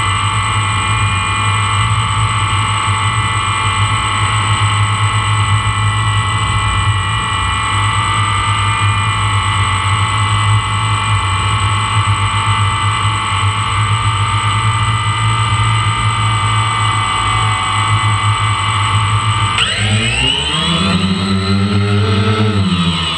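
Quadcopter drone's motors and propellers whining at a steady pitch over a low hum. About twenty seconds in, the pitch starts wavering up and down as the motor speed changes.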